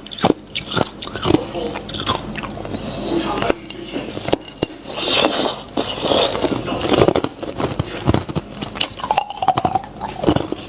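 Hard ice being bitten and chewed, a dense irregular run of sharp crunches and cracks.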